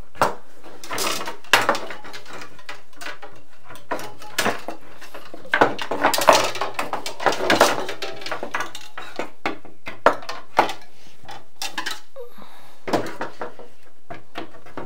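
Rods of a soft enclosure's frame being pushed into their corner connectors and knocked against a wooden workbench: scattered clicks, knocks and scraping rattles, with two sharp clicks about ten seconds in.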